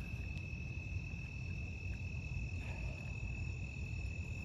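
Insects trilling steadily in one high, unbroken tone, over a low rumble.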